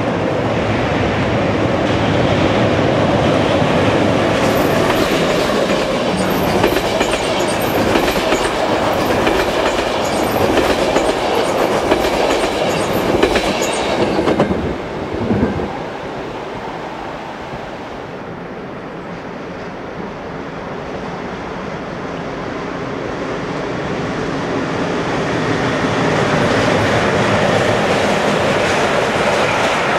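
Electric locomotive-hauled train rolling past on a steel bridge, its wheels clicking over the rail joints, dying away about halfway. Then a freight train of tank wagons comes on, the rolling noise building up to loud as it passes at speed near the end.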